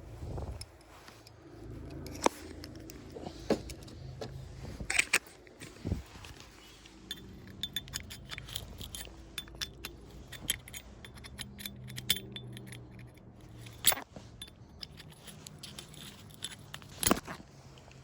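Small metallic clicks, taps and scrapes of a screwdriver working at a wood plug stuck inside a hole saw, with a dense run of clicks in the middle and a few sharper knocks.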